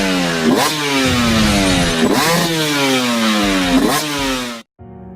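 Single-cylinder four-stroke engine of a Honda XR250 Tornado trail motorcycle running hard: three times its revs jump up quickly and then fall away over about a second and a half. The engine sound cuts off abruptly near the end.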